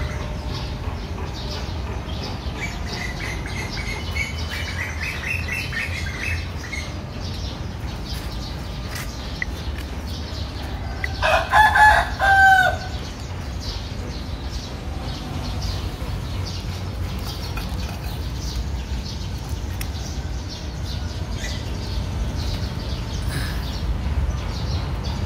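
A rooster crows once, loudly, about eleven seconds in: a two-part call whose second part ends on a falling note. A steady low rumble runs underneath, with faint bird chirps earlier on.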